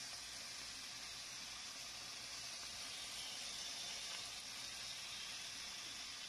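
Pork belly adobo sizzling and simmering in its soy sauce in a pan, a steady hiss.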